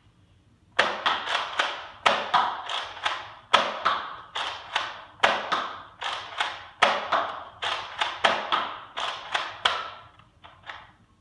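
Nerf Zombiestrike Doominator pump-action blaster being fired again and again: a rapid run of sharp plastic clacks from pumping and shooting darts, two to three a second, starting about a second in. A few fainter clicks follow near the end.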